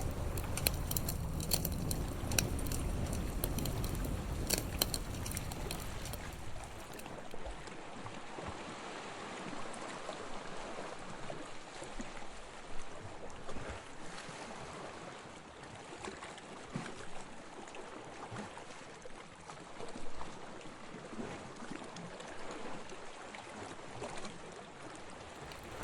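Campfire crackling with scattered sharp pops over a steady wash of water. The low rumble beneath drops away about seven seconds in.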